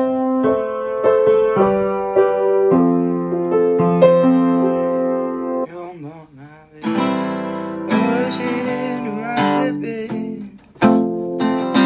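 Acoustic guitar being played: single notes picked one after another for the first several seconds, a brief lull, then chords strummed from about seven seconds in, with a short break shortly before the end.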